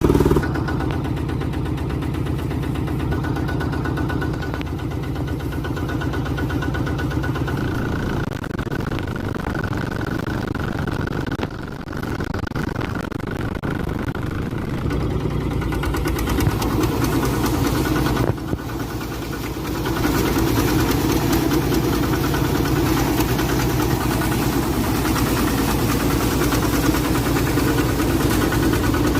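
Rice combine harvester running continuously with a steady engine drone. The tone shifts about a quarter of the way in, and the sound grows louder and rougher about two-thirds of the way through.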